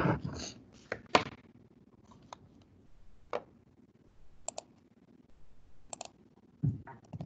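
Separate sharp clicks from a computer mouse and keyboard, spaced unevenly about a second apart.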